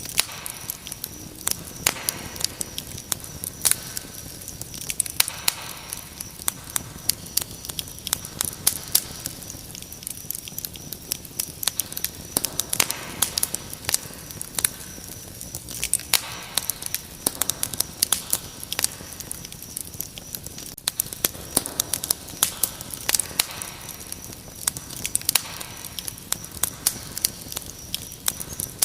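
Wood fire crackling with frequent sharp, irregular pops, over a steady high-pitched cricket chirring.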